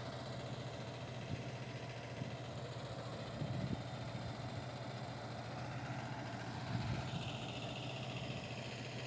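Diesel engine of a 4x4 pick-and-carry mobile crane running steadily while the crane holds a load on its hook.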